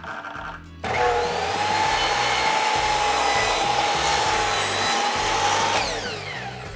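Kobalt sliding miter saw switched on just under a second in, its motor running with a steady high whine while the blade is pulled down through a wooden board to cut the taper on a step-stool leg. Near the end the trigger is released and the motor winds down in falling pitch.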